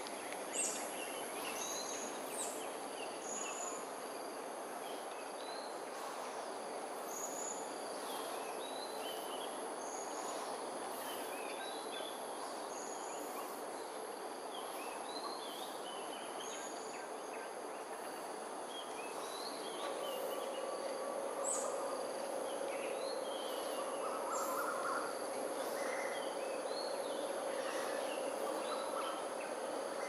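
Morning bird chorus: many small birds giving short chirps and calls over a steady high insect drone and a background hum. About two-thirds of the way through, a steady droning tone joins.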